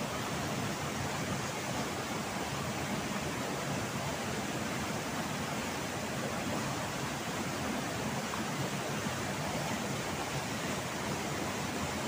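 Steady, continuous rush of a waterfall and fast-flowing river water.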